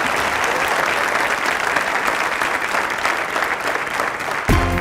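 Studio audience applauding steadily, a dense patter of many hands clapping.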